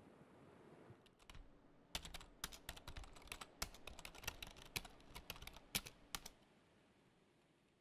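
Fingers typing on a laptop keyboard: a quick, irregular run of key clicks that starts after a faint low hum and stops about a second and a half before the end.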